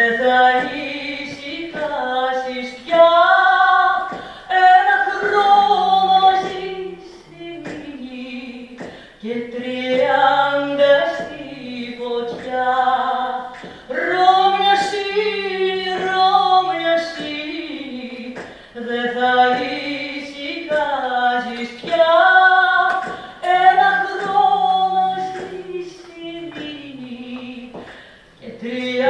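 A woman singing a slow song solo, in long held phrases with short pauses between them.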